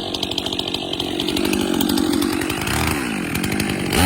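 Chainsaw engine running steadily. Near the end its pitch swoops up and back down.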